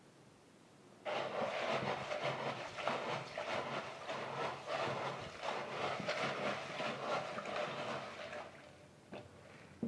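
A hand swishing and rubbing pigeon peas in a plastic tub of water: water sloshing with a dense clatter of peas. It starts about a second in and stops shortly before the end, followed by a couple of sharp knocks.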